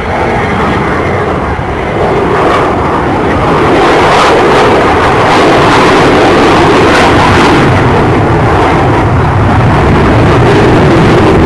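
Avro Vulcan bomber XH558's four Rolls-Royce Olympus jet engines in a loud, continuous roar that swells over the first few seconds, then holds as the bomber banks and climbs away.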